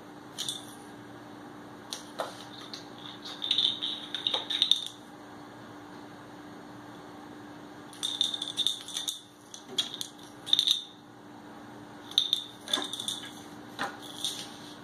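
A bottle cap batted about by a cat, clattering and skittering across a ceramic tile floor in bursts of quick clicks, with pauses between. A steady low hum runs underneath.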